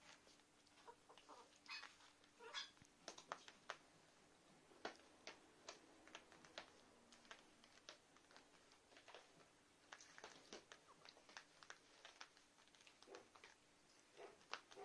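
Faint squeaks and grunts from a litter of young shih tzu puppies, mixed with short scratching and rustling as they crawl over a quilted puppy pad.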